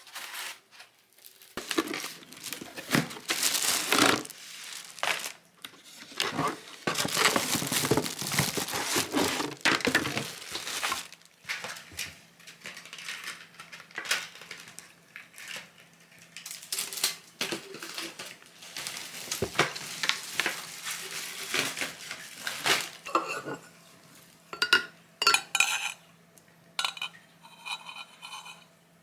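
Kitchen handling sounds: dishes and utensils clattering and clinking, mixed with rustling and crinkling, giving way to a few separate sharp clinks near the end.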